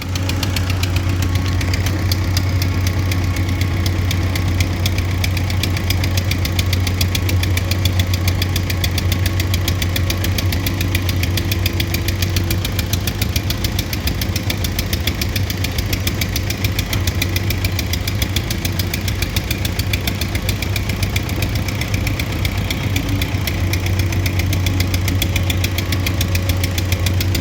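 An engine running steadily at a constant speed: an even low drone with a fast regular pulse that neither rises nor falls.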